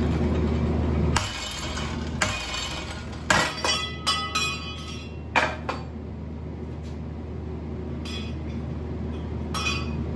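Steel hammer blows against a high-carbon steel file welded to a mild steel plate held in a bench vise, struck against the weld to test its strength: three sharp metallic strikes in the first few seconds, then a run of ringing metal clinks and clanks until about six seconds in. Fainter metal clinks follow near the end over a steady low hum.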